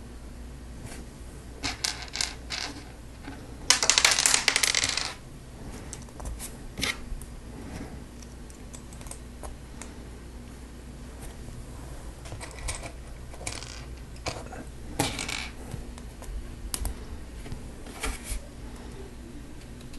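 Small hard plastic Lego Technic pieces clicking and clattering as they are handled, with a dense burst of clattering about four seconds in and scattered single clicks after it.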